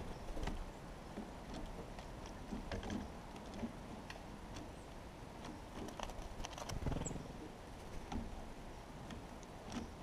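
Scattered sharp clicks and taps, with a few dull thumps around the middle, from birds landing on and pecking at a seed feeder close to the microphone.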